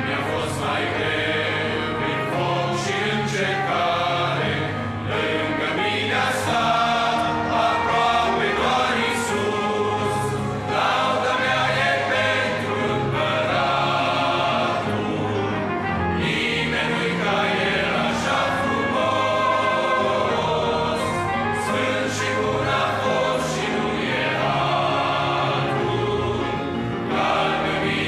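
Men's choir singing a hymn in Romanian, accompanied by piano, trumpet and electric bass guitar.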